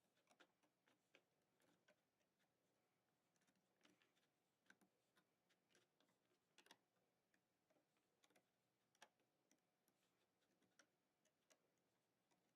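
Near silence with faint, irregular clicks and taps, from a plastic hook working rubber bands on a Fun Loom's pegs.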